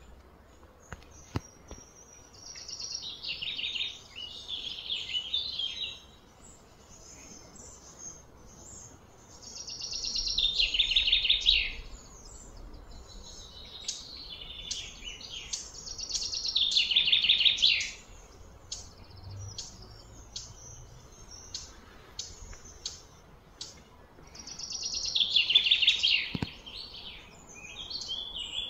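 A songbird singing a loud two-second phrase, a fast trill that falls in pitch, four times with gaps of several seconds, and softer short chirps in between.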